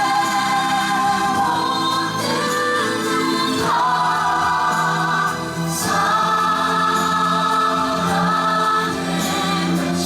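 Ensemble of singers in a choir-like chorus with orchestra, holding long sustained notes: a musical's company singing during the curtain call.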